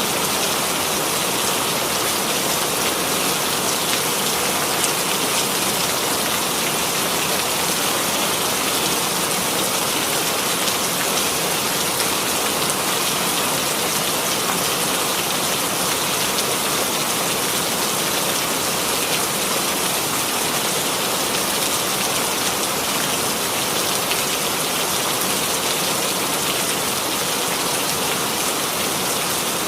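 Steady rainfall, an even rushing hiss of rain with no change in strength.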